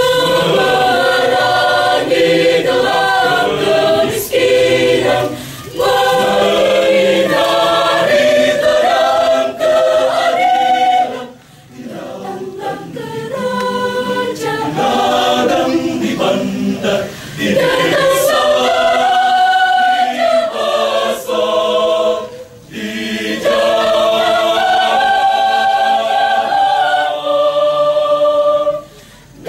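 Church choir singing a hymn in parts, breaking off briefly between phrases about a third and two-thirds of the way through.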